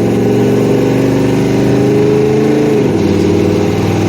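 Chevrolet 402 big-block V8 with a Comp Cams 268 Xtreme cam, driving under way. The engine note climbs slowly, then drops about three seconds in and carries on steadily.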